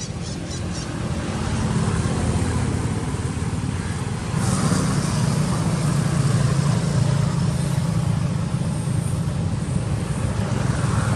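Road traffic: a motor vehicle engine drone that builds over the first couple of seconds, grows louder about four and a half seconds in, and then holds steady.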